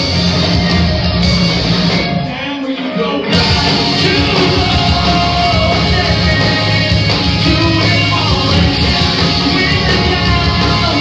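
A live rock band playing loud with a singer, heard from within the crowd. About two seconds in the bass, drums and cymbals drop out for about a second, then the full band comes back in.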